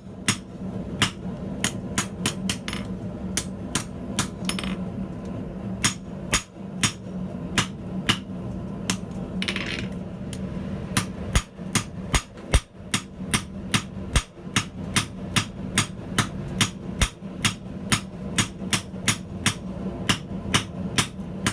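Old 1.5-pound ball-peen hammer striking steel on an anvil in a quick, steady run of blows, about two to three a second, with a few short pauses. A steady low hum runs underneath.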